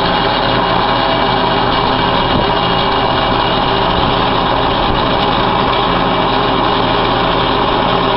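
Truck-mounted carpet cleaning machine in a service van running steadily, its engine and vacuum blower making a loud, even drone.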